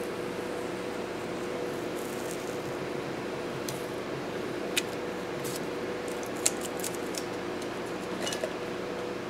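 Washi tape being peeled off paper: a few short crackles and ticks scattered over a steady hum.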